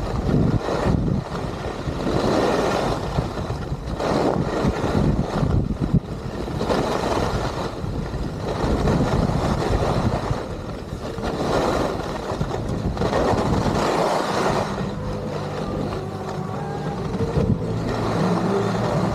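Skis scraping and carving across packed snow with wind rushing over the microphone, swelling and easing with each turn.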